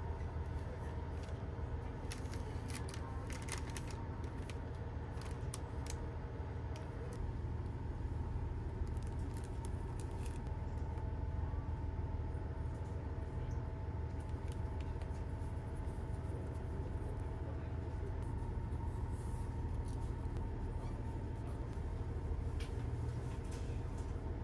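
Steady low hum of the Noto Railway train's diesel engine heard inside the passenger cabin. Over it, a plastic bag and its wrappings crinkle and rustle as they are handled, densely in the first half and more sparsely later.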